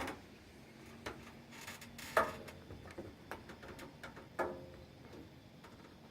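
Scattered light ticks and taps, with two louder knocks that ring briefly, about two seconds and four and a half seconds in.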